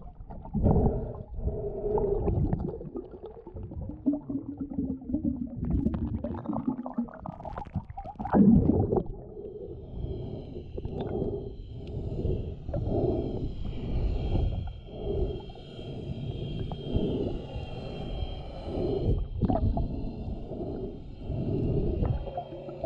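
Muffled underwater water noise and gurgling picked up by a submerged action camera as a snorkeler moves through shallow water, swelling and falling about once a second in the second half.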